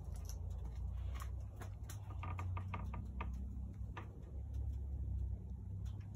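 Old Atlas drill press running, a steady low hum with light irregular ticking, a quick run of ticks a couple of seconds in.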